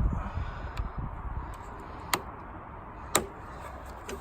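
Small screwdriver working at a rusty, stuck headlight wiring connector: two sharp clicks about a second apart, with fainter ticks around them.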